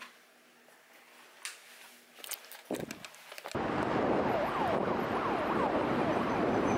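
Quiet room with faint clicks and cloth rustles, then, about three and a half seconds in, steady city street noise with traffic rumble starts suddenly. A few short falling whistles sound over it soon after.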